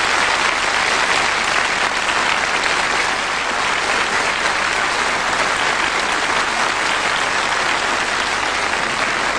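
Audience applauding, a steady, even clapping throughout.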